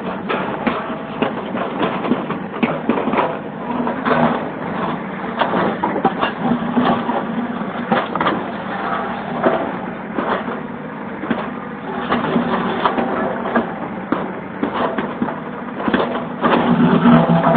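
A backhoe at work: its engine running under continual crunching and cracking as material is broken and pushed.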